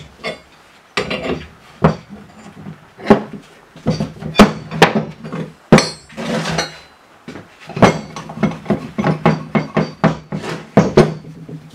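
Steel wrenches and a C-frame bushing press clanking and clinking against each other and a plywood workbench, with one sharp ringing clank about six seconds in. Near the end comes a quick run of clicks and rattles as the press screw is worked by hand on a lower control arm.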